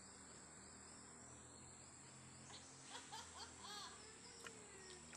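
Near silence: faint, steady, high-pitched chirring of forest insects, with a few faint short calls about three seconds in.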